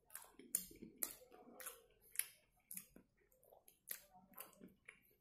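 Close-up chewing of a mouthful of chicken cheese burger: irregular, sharp mouth clicks and smacks, about two a second.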